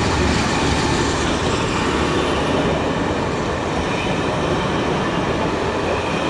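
Train headed by a pair of Class 47 diesel-electric locomotives pulling out of the station: a steady mix of diesel engine noise and rolling wheels.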